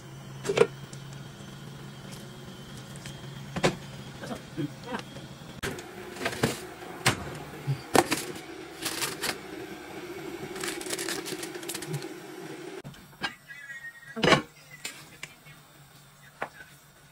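Metal spoon knocking and scraping against an aluminium cooking pot while jollof rice is turned, in scattered sharp clicks over a steady low hum.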